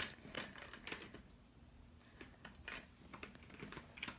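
Faint, irregular light clicks and taps of plastic fidget spinners being handled and set down.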